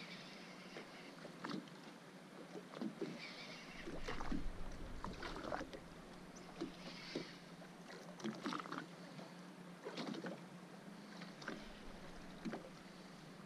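Spinning reel being cranked against a hooked fish on a bent rod, with irregular knocks and slaps of water against the boat hull over a steady low hum. A louder low rumble comes about four seconds in.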